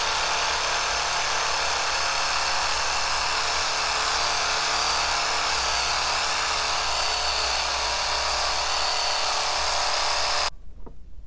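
Philips Satinelle wet and dry epilator running with its rotating tweezer head against the skin of the back of the hand: a steady motor buzz that cuts off suddenly about half a second before the end.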